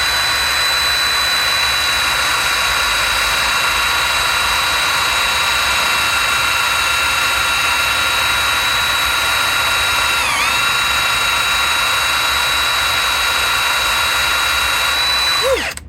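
Power drill running at full speed while polishing a socket, a steady high whine that dips briefly under load about ten seconds in, then spins down as the trigger is released near the end.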